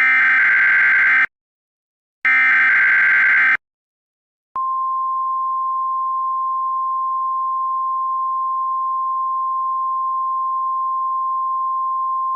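Emergency Alert System SAME header: two short bursts of harsh digital data tones, then, after about a second of silence, a long steady single-pitch alert tone starts. The tone is the NOAA Weather Radio warning alarm that signals a warning message is about to follow.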